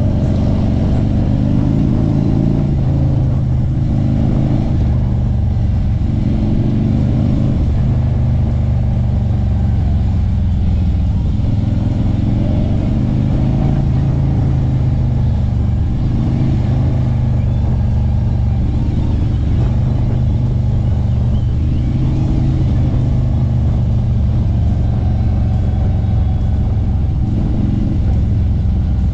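Harley-Davidson Street Glide's V-twin engine running steadily while under way, its low note rising and falling a little with the throttle several times.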